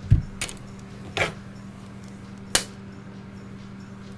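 Metal-handled folding knives being set down on a cloth mat: a dull thump just after the start, then a few sharp clicks, at about half a second, just past a second and about two and a half seconds in. A steady low hum runs underneath.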